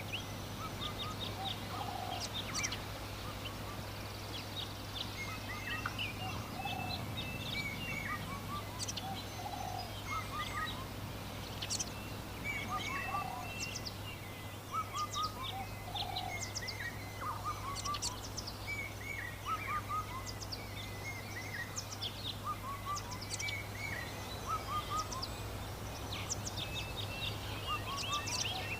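Rural birdsong: many birds chirping busily with short high calls, a lower call repeating every second or two, and a steady low hum underneath.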